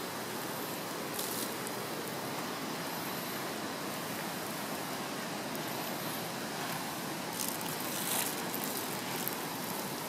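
Doused campfire embers hissing steadily as water turns to steam in the hot ashes, with a few faint crackles.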